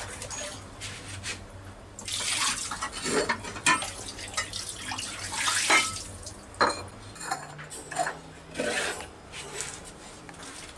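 Dishes being washed by hand: water splashing and pots and bowls clinking and knocking against each other as they are scrubbed and rinsed, in uneven bursts.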